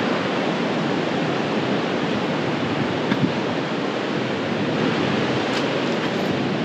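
Ocean surf, a steady even wash of waves with no single wave standing out.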